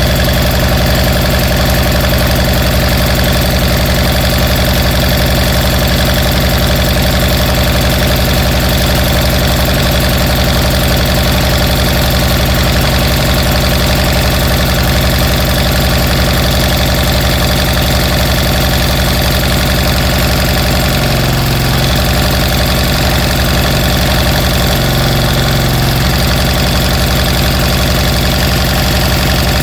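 Small engine, the rebuilt Briggs & Stratton 23 hp Intek, running steadily with an even fast beat. Its note drops briefly twice, about two-thirds of the way through.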